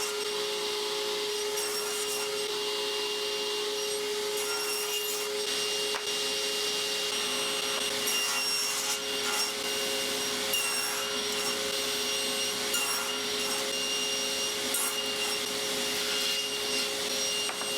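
Table saw fitted with a dado blade running steadily while cutting dados across the ends of maple box sides. It makes a constant tone with a hiss over it, with only small swells in level.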